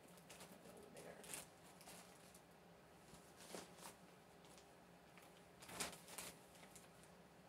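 Faint rustling and crinkling of plastic shipping mailer bags being handled, a few short rustles about a second in, around three and a half seconds, and near six seconds, with near silence between.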